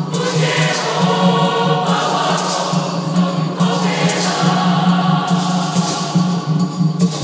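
Large mixed youth choir singing a piece in several parts with piano accompaniment, the sound echoing in a large stone chapel.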